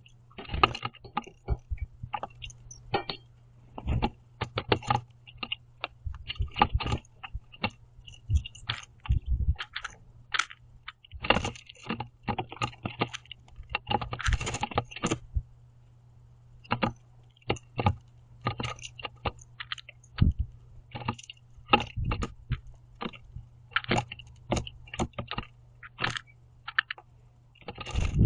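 Blue jays feeding on a wooden platform feeder: rapid, irregular clicks and knocks of beaks and feet on the wood with seed rattling, mixed with quiet squeaky calls. A steady low hum runs underneath.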